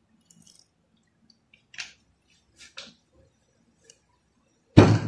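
Two brief soft rustles, then one loud, sudden thump near the end, as food and utensils are handled over a pot.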